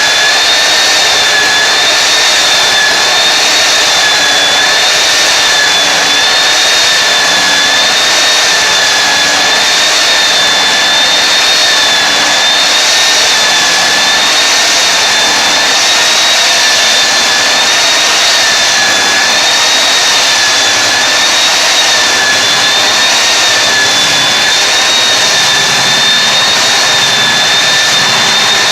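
Floor belt sander running steadily, a loud motor whine over a rushing sanding noise, the pitch wavering slightly as it works.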